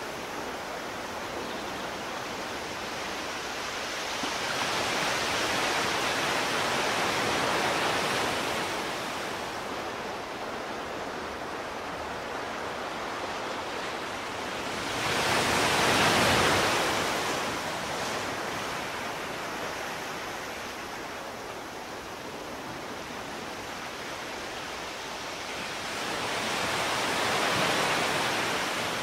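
Rushing sea-water noise that swells and fades three times.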